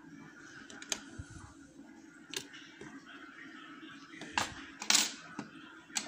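Sharp metal clicks and taps from handling lock-picking tools against a euro cylinder lock: a few single clicks, with the loudest cluster about five seconds in.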